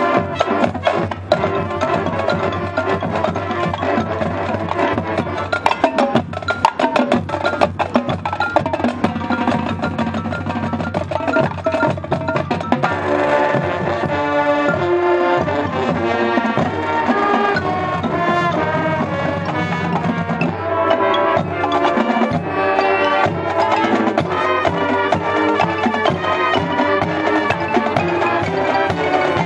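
High school marching band playing on the field: the drumline drives a fast run of drum strokes for the first dozen seconds or so, then the horns take up a held, chordal melody over the drums.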